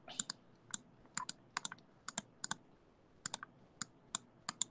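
Faint, irregular clicking of a computer keyboard and mouse, often in quick pairs, with short pauses between.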